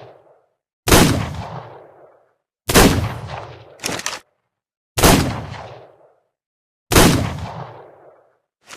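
Revolver gunshot sound effect: four shots about two seconds apart, each with an echoing tail that dies away over a second or so. A short, sharp crack comes about a second after the second shot.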